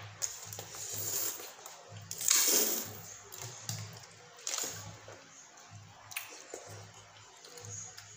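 Instant noodles being slurped and chewed, with metal forks clicking against plates. The loudest slurp comes a little after two seconds in.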